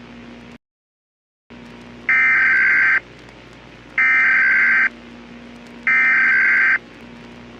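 Emergency Alert System SAME header: three loud, harsh data-tone bursts, each just under a second long and about two seconds apart, announcing an emergency alert. Beneath them runs a low hiss that cuts out to silence for about a second near the start.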